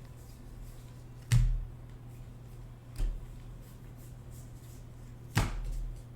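Trading cards being slapped down on a table: three sharp snaps about two seconds apart, over a steady low hum.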